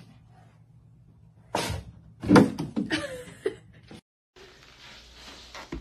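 A cat's cone collar knocking against wardrobe doors: a sharp knock about one and a half seconds in, then the loudest thud and a few lighter knocks over the next second or so.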